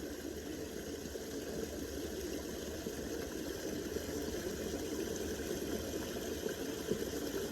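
Small creek trickling and babbling over little granite stones in a steady, continuous flow.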